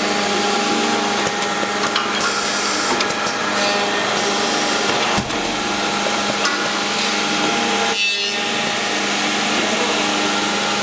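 Cross-milling machine's cutter working wood: a steady machining noise over a constant hum, with brief breaks about five and eight seconds in.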